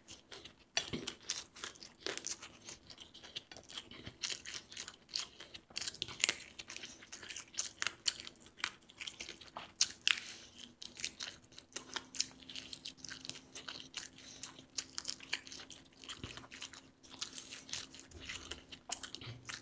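A person eating close to the microphone: irregular crunching bites and chewing, several crunches a second.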